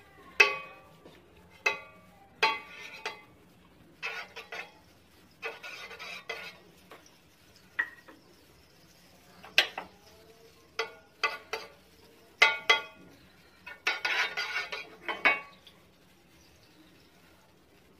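A spoon clinking against a steel bowl and scraping around a flat non-stick pan as butter is scooped in and spread. There are a dozen or so sharp, short-ringing clinks scattered throughout, with a few longer scraping strokes, the longest about two-thirds of the way through.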